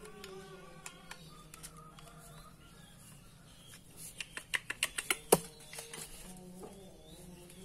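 A quick run of about eight sharp metal clicks and taps from an angle grinder's gear head and disc being handled while it is reassembled, starting about four seconds in; the last click is the loudest.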